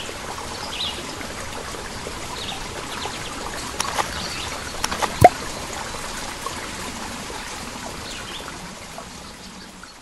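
Flowing stream ambience with a few faint bird chirps and a single sharp, rising plop about five seconds in. It fades out near the end.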